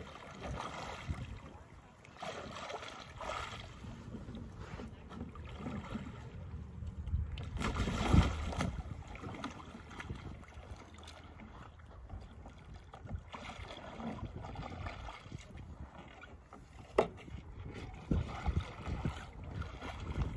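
Water sloshing and splashing around a capsized Rebel Ilaga kayak as the paddler rolls it back upright, with the strongest splash about eight seconds in. A single sharp knock comes near the end, and there is light wind on the microphone.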